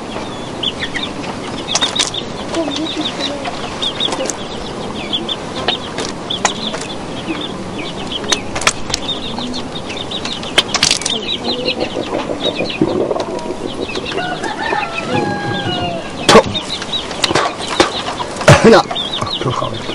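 Domestic chickens clucking, with many short high chirps throughout and a few sharp knocks or wing flaps near the end.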